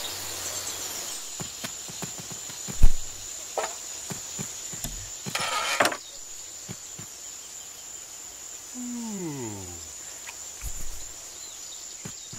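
Steady high insect chirring as night ambience. Over it come one loud, heavy thump about three seconds in, a short rustle near the middle, and a low pitched sound sliding down in pitch near the end.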